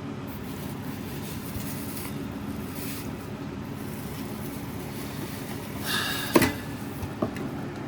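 Steady low background hum, then a brief rustle and a single sharp knock about six seconds in, with a smaller click just after: items being handled and set down.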